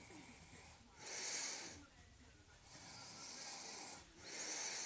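A person breathing close to the microphone: about three breaths, each a hissy swell lasting around a second.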